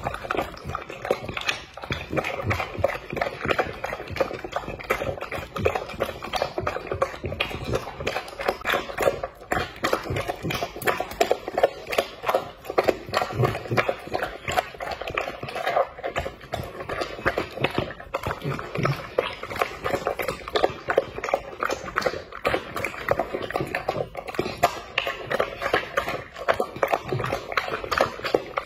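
French bulldog eating soft meat and vegetables in broth from a glass bowl: a fast, unbroken run of wet chewing, smacking and lapping clicks.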